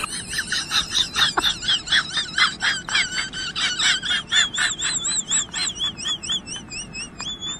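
High-pitched bird-like chirping: rapid short chirps, about four a second, that turn about halfway through into a continuous warbling whistle wavering up and down.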